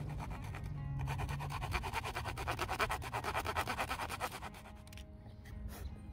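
Small fine-toothed hand saw cutting a notch in a wooden stick in rapid back-and-forth strokes, starting about a second in and stopping about four and a half seconds in, over background music.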